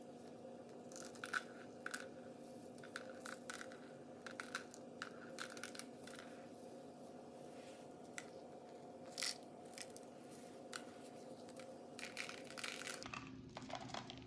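Sprinkles being shaken and scattered onto frosted donuts: scattered light clicks and crackles at irregular intervals, over a steady low hum that stops near the end.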